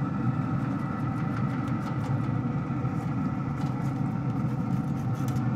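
Steady mechanical hum with several steady tones from the running smoker, with a few faint light scrapes as a raw meatloaf is slid off a metal pizza peel onto the grates.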